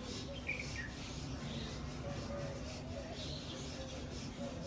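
Faint outdoor background hiss with a short high bird chirp about half a second in, and faint thin wavering calls in the background.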